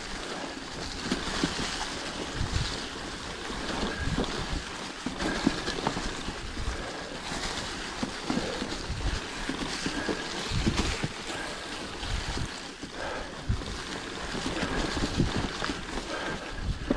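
Mountain bike rolling along a singletrack covered in dry fallen leaves: tyres crunching through the leaves, with irregular knocks and rattles from the bike over bumps and wind noise on the microphone.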